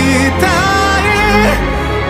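Background pop song with a sung melody over a steady accompaniment.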